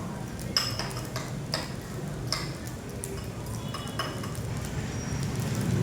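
Cooking utensil clinking against a pan several separate times while fried rice is being cooked, over a low steady hum.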